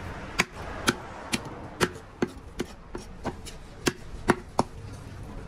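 Knife chopping on a cutting board: a steady run of sharp strokes, about two a second.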